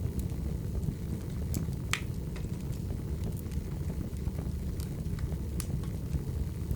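Wood fire crackling: a steady low rumble of burning logs with scattered sharp pops, the loudest about two seconds in.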